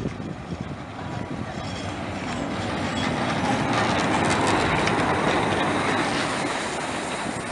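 Narrow-gauge steam tank locomotive 99 1771-7 rolling slowly past at close range: a rumble of wheels and running gear that grows louder as it draws level, loudest a little past the middle, then eases slightly.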